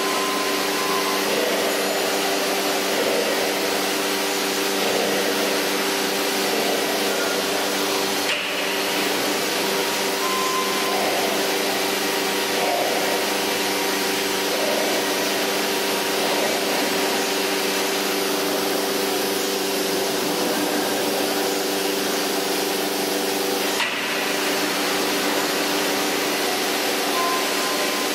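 CNC horizontal-and-vertical panel drilling machine running: a steady mechanical hum with a hiss over it from its motors and drilling head, which dips briefly twice.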